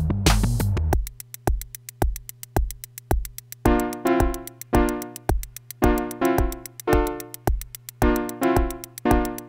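Electronic music played live: a Roland TR-6S drum machine beats a steady four-on-the-floor kick, about two a second, with fast hi-hats under a held low bass note, after a dense noisy wash cuts off about a second in. From near four seconds in, short rhythmic chords from the Dreadbox Nymphes six-voice analog polysynth come in over the beat.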